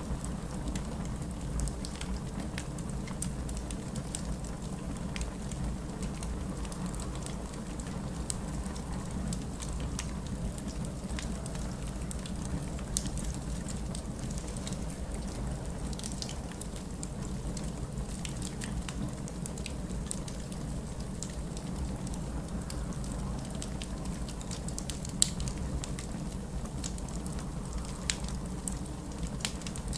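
Wood fire in a fireplace crackling, with scattered sharp pops over a steady low rumble; two pops stand out, about 13 and 25 seconds in.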